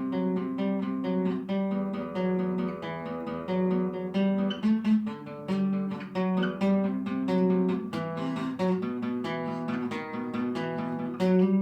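Acoustic guitar playing a song's instrumental introduction: chords picked in a steady, even rhythm.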